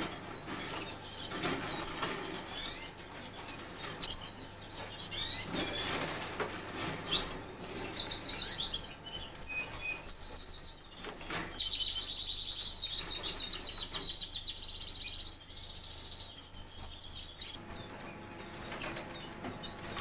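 Fife canaries chirping, then a canary singing a long, fast, rolling song of trills and chirps from about a third of the way in until near the end. A few short rustles or knocks come before and during the song.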